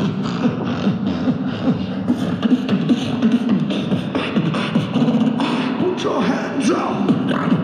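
Beatboxed disco dance music made entirely with one man's voice: a steady beat of vocal drum sounds under a low sung line, with a few rising and falling vocal glides near the end.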